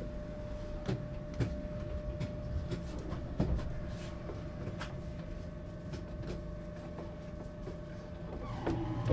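Inside a Duewag M6D articulated tram, quiet and apparently standing: a steady electrical hum with a thin steady tone, and scattered clicks and knocks. A low rumble grows near the end.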